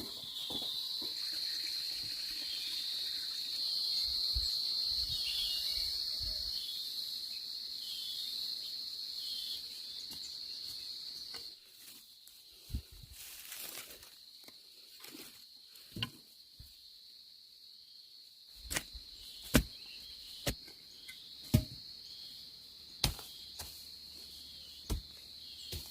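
Insects buzzing steadily at a high pitch, louder for the first half and dropping about halfway through. In the second half come sharp knocks, about one a second near the end.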